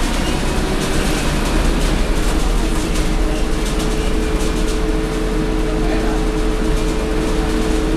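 Interior noise of a Scania K230UB city bus under way: its Scania DC9 five-cylinder diesel gives a steady low rumble, with body rattles near the start. A steady whine comes in about three seconds in and holds.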